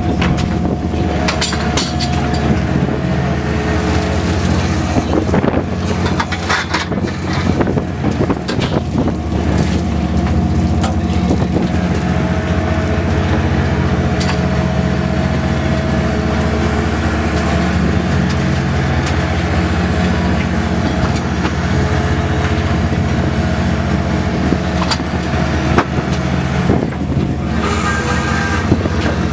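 Boat engines running steadily with a low, even hum, with scattered knocks and clatter over it.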